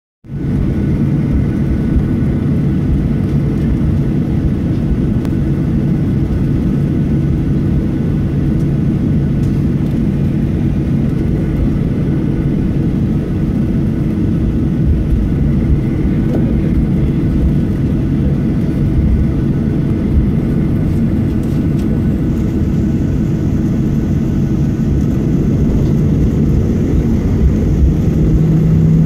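Boeing 737 turbofan engines running at taxi power, heard inside the cabin as a steady hum over a low rumble. Near the end the engine hum rises a little in pitch and grows louder.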